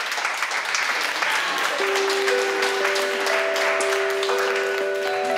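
A group applauding, many hands clapping quickly and unevenly. About two seconds in, music with long held notes comes in under the clapping.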